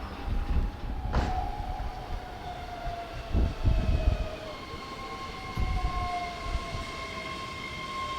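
Keihan electric train on the line: a whine from its traction motors that falls slightly in pitch, then settles into a steady higher whine about four and a half seconds in. Under it runs a low rumble with several heavy thuds, and a sharp click about a second in.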